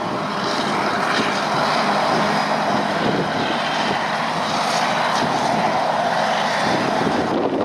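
Claas Jaguar forage harvester running under load as it chops maize and blows it into a trailer: a steady machine drone, mixed with the engine of the tractor hauling the trailer alongside.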